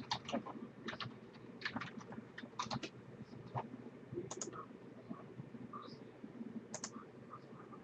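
Faint, irregular clicks of typing on a computer keyboard, thickest in the first three seconds and sparser after.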